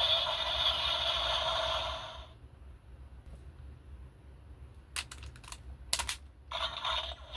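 Electronic sound effect from a Super Sentai toy gun's speaker, which stops about two seconds in. Then come a few sharp plastic clicks near the end as the toy is handled, and another electronic effect starts.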